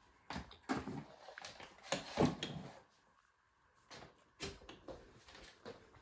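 Scattered light knocks, clicks and rustles from handling a canister vacuum cleaner's hose and wand, with the motor switched off.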